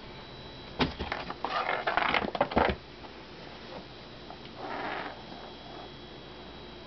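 Maine Coon mix kitten scrambling in a cardboard box: bursts of scratching and rustling on the cardboard from about a second in for nearly two seconds, then a shorter burst near five seconds.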